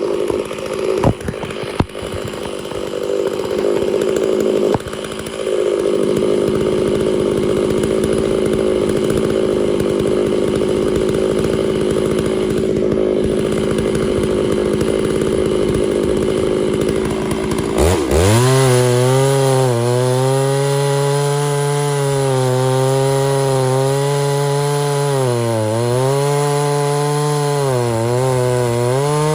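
Chainsaw running at speed through a white oak log. About two-thirds of the way in, the sound changes abruptly to a lower, clearer engine note that dips briefly several times.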